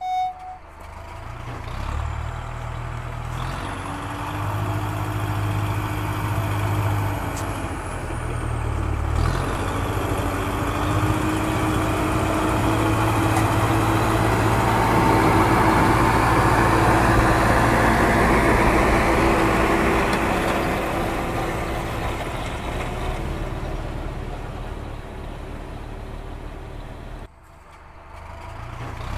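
Tractor engine running steadily, growing louder toward the middle and easing off again, with a short break near the end.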